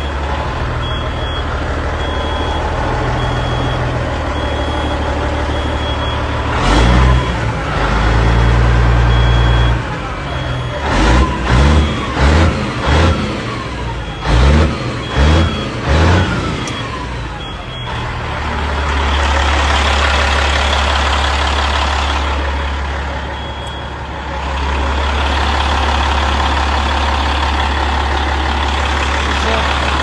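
Caterpillar 3406E diesel engine of a Kenworth T600 running, with a dash warning buzzer beeping repeatedly. About ten seconds in, the engine is revved in a quick series of six short blips, rising and falling in pitch. After about 18 s the beeping stops and the engine settles to a fuller, hissier idle as heard at the open engine bay.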